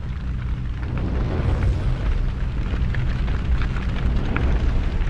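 Sound effect of a wildfire burning: a deep, continuous rumble with scattered crackles and pops.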